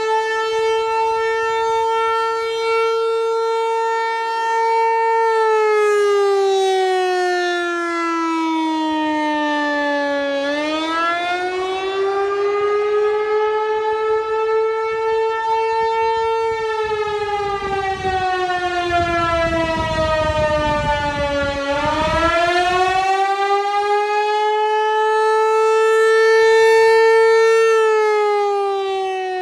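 Outdoor tornado warning siren sounding the wailing attack signal. Its tone holds high for several seconds, slides down over about five seconds, then swoops quickly back up, about every eleven seconds.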